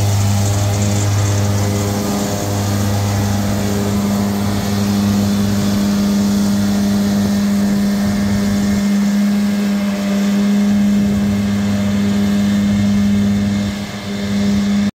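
Krone BiG M 450 self-propelled mower conditioner running steadily while mowing, a constant droning hum of engine and cutting gear; the deepest part of the drone eases about two seconds in.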